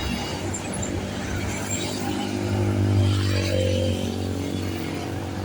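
Bus diesel engine running close by, swelling to its loudest about three seconds in and then easing off.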